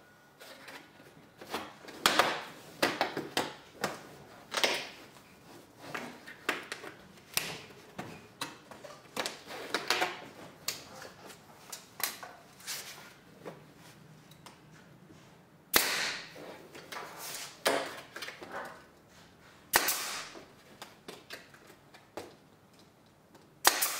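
Staple gun firing sharp single shots into the bottom flange of an aluminium trailer siding panel, fastening it to the wall studs. Between shots, the thin aluminium siding clicks and rattles as it is pressed and shifted into place.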